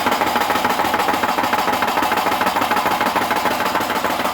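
1959 Mercedes-Benz 190SL four-cylinder engine cranking on the starter with all four spark plugs in and no spark, knocking in a rapid, even knock-knock-knock. The knock follows how many plugs are installed, so the owner doubts spun rod bearings and suspects something else, maybe the starter or flywheel.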